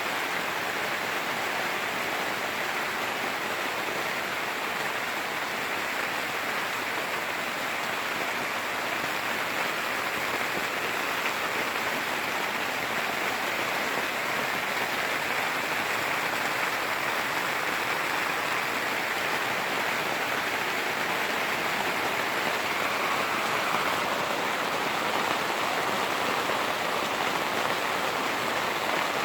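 Rain falling on a Cabela's Big Horn 3 tent, a steady, even hiss with no thunder claps.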